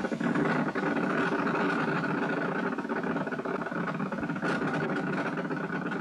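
Bats' ultrasonic cries converted into audible sound by Pierce's early ultrasonic detector and played through its horn loudspeaker: a loud, dense, rapid clicking buzz that comes in suddenly and holds steady.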